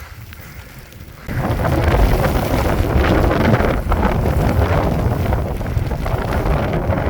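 Strong blizzard wind buffeting the microphone, a loud, rough, low rumble that starts suddenly about a second in and keeps gusting.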